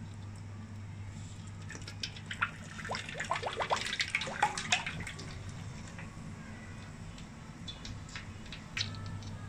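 Cooking oil poured from a bottle into a wok: a run of quick glugs and splashes from about two to five seconds in, then a thinner, quieter pour. A low steady hum runs underneath.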